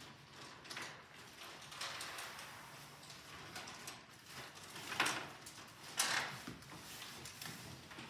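Clear plastic bag of crayons being handled, giving several short crinkling rustles; the loudest come about five and six seconds in.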